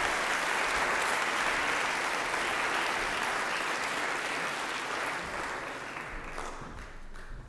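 Audience applauding, steady at first and dying away over the last couple of seconds.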